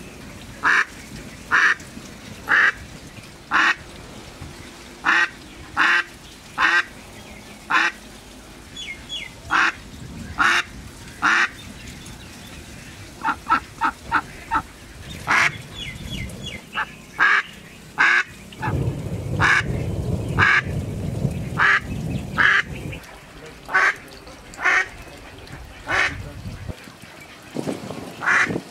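Mallard hen quacking: a long series of loud single quacks about one a second, with a quick run of short quacks about halfway through. A low rumble lies under the quacks for a few seconds past the middle.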